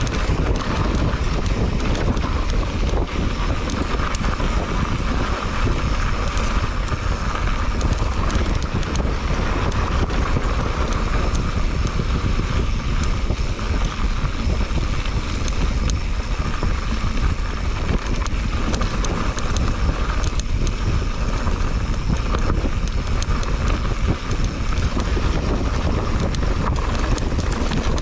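Wind buffeting the microphone of a mountain bike's handlebar camera as the bike rolls down a dirt trail, over a steady rumble and a continual clatter of small knocks and rattles from the tyres and bike on the rough ground.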